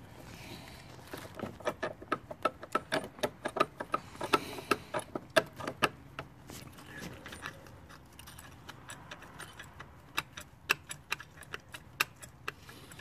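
Ratchet wrench with a 13 mm socket clicking in quick runs as it turns the bolt holding the oil catch can's bracket, with a lull midway and a few more clicks near the end.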